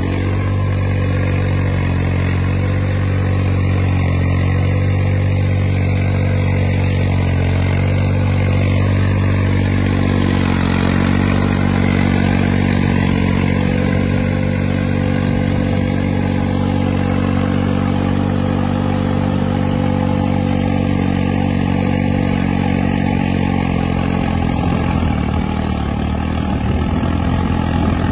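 New Holland 3630 tractor's three-cylinder diesel engine running steadily under load, pulling a land leveller through tilled soil.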